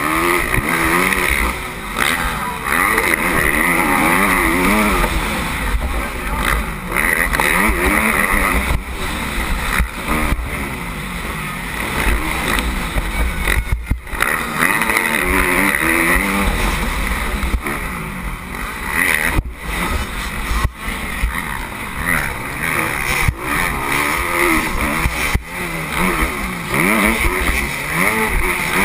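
Motocross bike engine heard close from the onboard camera, revving up and dropping back over and over as the rider accelerates out of turns and shifts on the dirt track.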